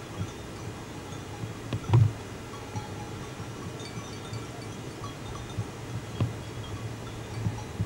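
Faint tinkling of small bells over a steady low hum, with a few short knocks, the loudest about two seconds in.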